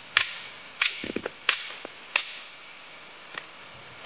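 Hammer striking the back of a hatchet driven into a log round to split firewood: sharp metal-on-metal strikes, four about two-thirds of a second apart, then a faint tap, and another loud strike right at the end.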